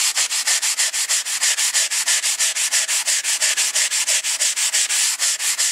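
Abrasive sanding block rubbed quickly back and forth by hand along a rusty steel bow saw blade, an even scratchy scraping of several strokes a second, taking rust and high spots off the blade.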